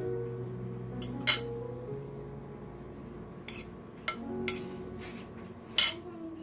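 Metal spoon and fork clinking and scraping against a plate of rice: several sharp clinks, the loudest about a second in and near the end.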